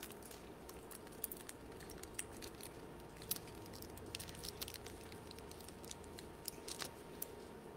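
Faint crinkling and scattered small clicks of thin plastic being handled: the peel-off seal of a prefilled communion cup being worked open.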